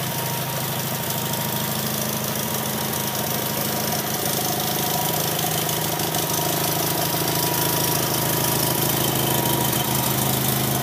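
Onan P220G flat-twin engine of a 1979 Sears GT19.9 garden tractor running steadily, the tractor standing still, through its non-original exhaust, which is pretty quiet.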